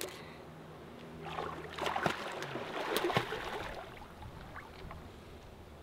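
Water splashing and sloshing in a shallow pool for about two seconds, with a few sharp knocks among the splashes, then fading to a faint steady background.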